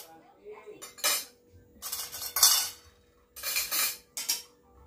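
Plates, a metal pot and a serving spoon handled while food is dished out, in four or five short bursts of clattering and scraping.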